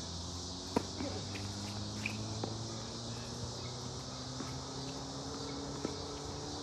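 Tennis serve: a sharp crack of the racket striking the ball about a second in, followed by a few fainter ball hits and bounces of the rally, over a steady high chorus of evening insects.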